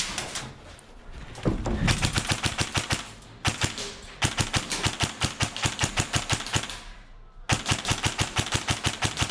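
Airsoft rifle firing on full auto: several long bursts of rapid, evenly spaced shots, with short pauses between them.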